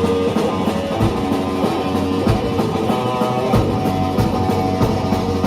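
Rock band playing an instrumental passage: guitar chords over a steady drum-kit beat, without vocals.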